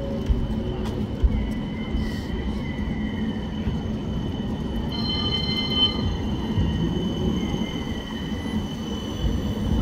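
West Midlands Metro tram rolling past on street track: a steady rumble with a thin high whine that grows stronger about halfway through. There are two sharp knocks near the start.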